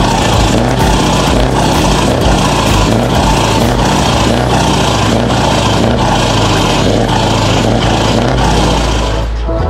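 Custom truck's diesel engine running, heard close to its row of four exhaust tips: a loud, steady deep drone.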